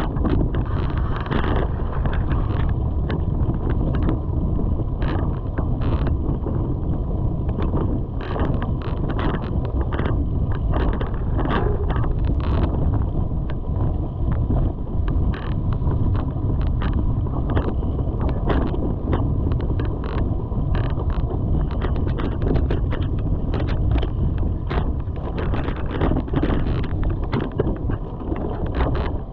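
Wind buffeting the microphone of a mountain biker's camera while riding a dirt forest trail, a steady low rumble, with frequent short knocks and rattles from the bike going over bumps.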